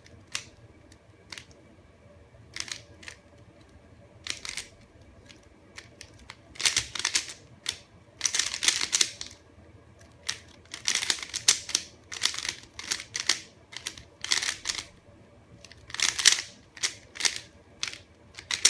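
A plastic MoYu Mirror S speed cube, restickered as a standard 3x3, being turned quickly as it is scrambled and solved. The layer turns clack in rapid runs, separated by short pauses.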